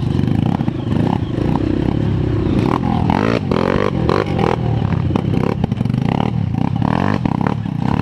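Honda CRF230 trail bike's single-cylinder four-stroke engine running under throttle up a deep rut, its pitch rising and falling about three seconds in. Clattering knocks come from the bike jolting over rocks and roots.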